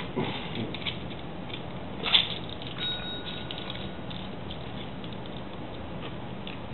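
A cat pawing a desk service bell: light taps, a sharp knock about two seconds in, then a single short ding about three seconds in that rings for about a second.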